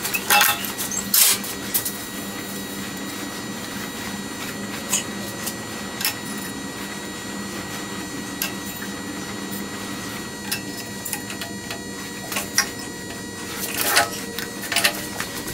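Reid surface grinder running with a steady hum, while steel blocks clink and knock as they are set down on the chuck: two sharp knocks about a second in, and a run of lighter clinks near the end.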